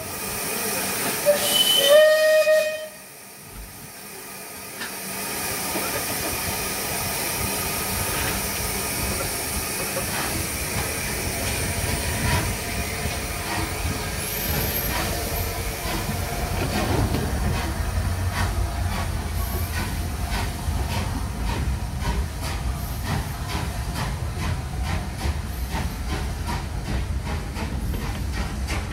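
Steam locomotive whistle giving a short blast about two seconds in. Then steady hissing steam and a low rumble as the locomotive works, with regular exhaust beats.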